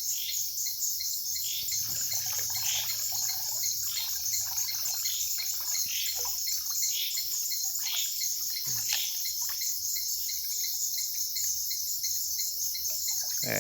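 Steady trilling chorus of crickets and other night insects, with scattered splashing and dripping of water as a cast net is hauled in from the river.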